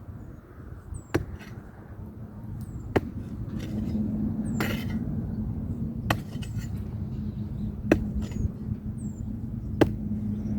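Hand tool striking in single sharp blows, about six of them, one every one and a half to two seconds, over a steady low hum.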